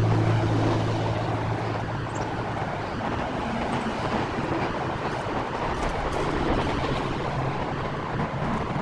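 Steady roar of interstate highway traffic heard through the woods, an even rush of tyres and engines.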